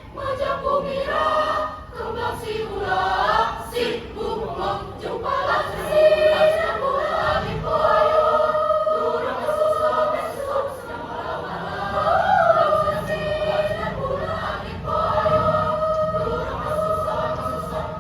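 High-school choir singing together, with long held sung notes.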